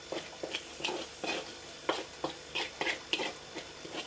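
Metal spatula scraping and tossing chili paste around a wok in quick, uneven strokes, a few a second, over a faint sizzle: the paste is being stir-fried in oil until fragrant.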